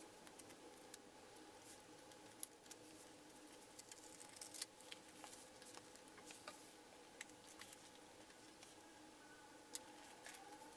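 Faint handling of a cardboard mailer box and the hardback book inside it: scattered light crackles, taps and scrapes as the flaps are opened and the book is slid out, over a faint steady hum.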